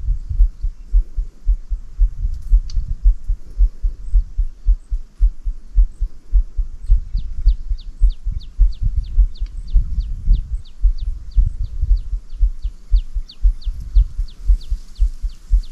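Rapid, irregular low thumps throughout. From about seven seconds in, a high chirp repeats about four times a second, each note falling in pitch.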